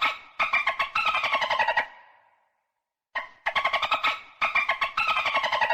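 Dolphin chattering: rapid pulsed squeaks in two matching bouts about three seconds apart, the pitch sliding down toward the end of each bout.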